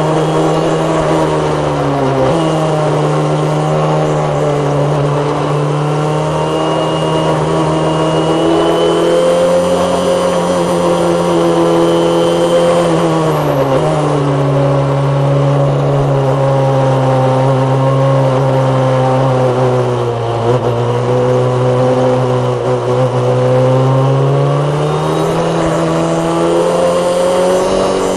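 Formula Palmer Audi single-seater's turbocharged Audi four-cylinder engine running hard under racing load, heard on board. Its pitch climbs steadily and then drops sharply at about 2 s, 14 s and 20 s, as the car changes gear and slows for corners, before climbing again.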